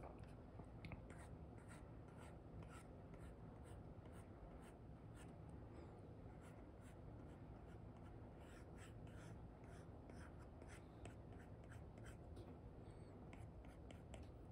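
Faint, quick scratching and tapping of an Apple Pencil 2 fitted with an Elecom replacement nib, dragged across a paper-textured screen protector on an iPad in many short strokes, over a low steady room hum.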